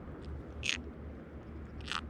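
A small pufferfish squeaking twice, about a second apart: short, sharp grating sounds over a low steady background.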